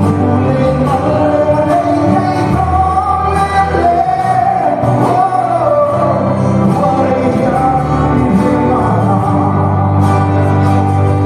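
A man singing a song live into a handheld microphone over instrumental accompaniment, amplified through PA loudspeakers in a large hall.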